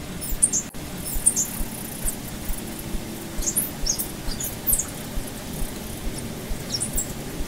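Outdoor ambience: a steady low rumble with scattered short, high-pitched chirps and squeaks throughout.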